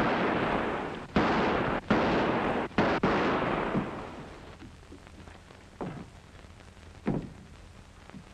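Four pistol shots in quick succession in a room, each with a sharp crack and a ringing echo, spread over about three seconds.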